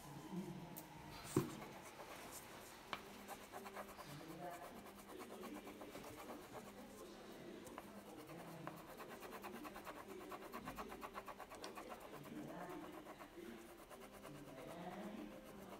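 Wax crayon scratching back and forth on paper in quick, rhythmic strokes, colouring in a shape. A single sharp tap about a second and a half in.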